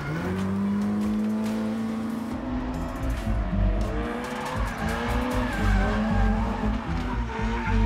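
Two drift cars sliding in tandem: engines held at high revs, rising and falling, over tyres squealing and skidding. Music plays underneath.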